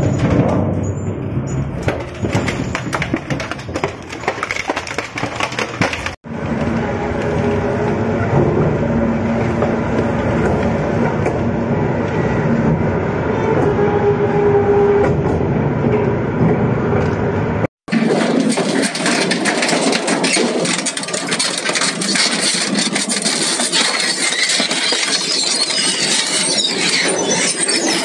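Industrial crushing or shredding machinery running under load, a dense grinding noise with many sharp knocks and cracks. It breaks off suddenly about 6 s in and again near 18 s as one clip gives way to the next, the last part sounding higher and hissier with the low end gone.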